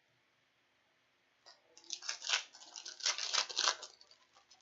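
A foil trading-card pack being torn open and its wrapper crinkled: a run of crackling rustles starting about two seconds in and stopping near the end.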